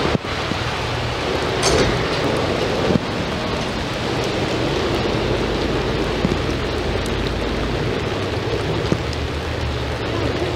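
Steady rain falling, an even hiss, with a couple of brief taps about two and three seconds in.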